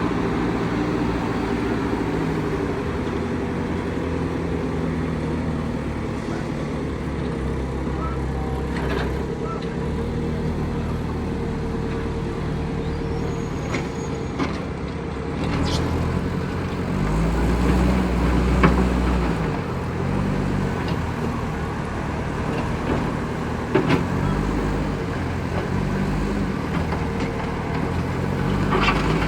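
Engines of heavy vehicles running, their pitch rising and falling several times, with a louder surge about two-thirds of the way through and a few sharp knocks.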